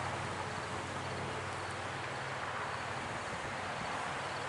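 Steady outdoor ambience: an even insect chorus with a low, constant hum underneath.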